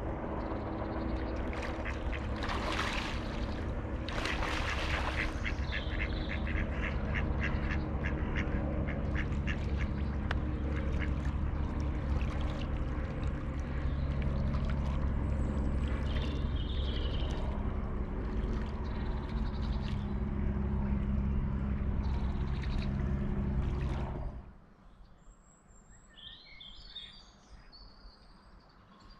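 Ducks quacking on a pond in quick runs and single calls over a steady low background. The background cuts off suddenly near the end, leaving faint songbird chirps.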